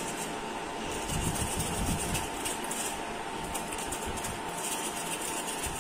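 Small steel mesh strainer shaken over a plate to sift flour: a steady soft rustle with light metal rattling of the strainer.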